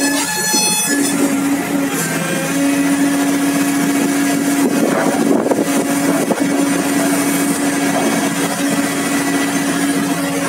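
Hitachi hydraulic excavator with a long-reach boom and arm running under load, its engine and hydraulics making a steady drone with a held tone and overtones.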